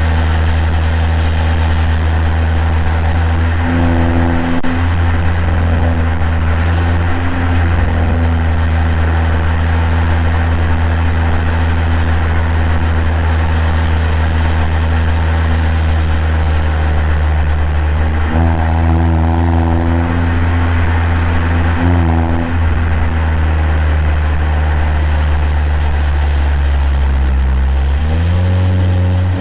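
2021 Mazda 3 Turbo's 2.5-litre turbocharged four-cylinder running through a Corksport cat-back exhaust with a Vibrant resonator, cruising with a steady low drone. The note thickens briefly with more throttle about four seconds in and again around eighteen and twenty-two seconds, and the pitch climbs near the end as it accelerates.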